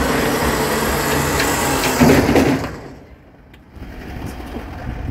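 Electric recovery winch on a truck's flatbed running under power with a steady motor hum, swelling briefly and then stopping abruptly about three seconds in.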